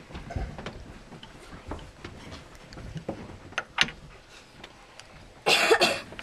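Small plastic cups being handled and set down on a wooden tabletop: a scatter of light clicks and knocks, with a sharper knock just before 4 s. About 5.5 s in, a loud, brief rush of noise lasting about half a second.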